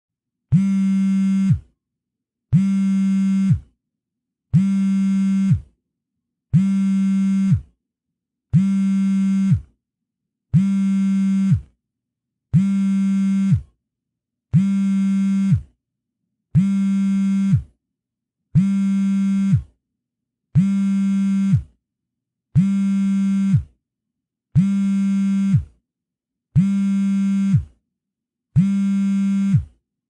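Mobile phone on vibrate, buzzing in a steady on-off pattern: fifteen low buzzes of about a second each, one every two seconds.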